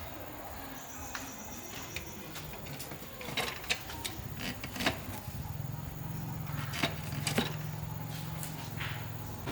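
A handful of sharp clicks and knocks, then about halfway through a tractor engine starts running with a low steady hum.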